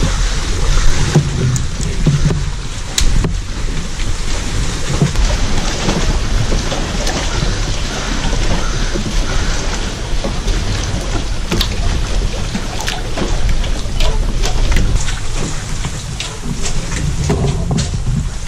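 Wind buffeting an outdoor camera microphone: a steady, loud rumbling rush with scattered small clicks and knocks.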